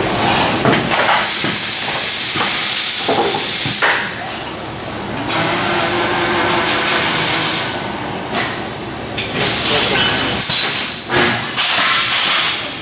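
Robotic welding cell at work: stretches of loud hissing, crackling noise that start and stop abruptly several times, mixed with sharp knocks.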